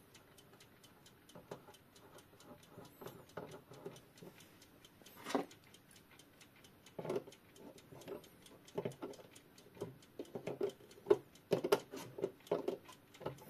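A Junghans wall clock's balance-wheel movement ticking rapidly and steadily, running again after the repair. Over it come louder, irregular metallic clicks and knocks from a nut driver and pliers fitting the hand nut.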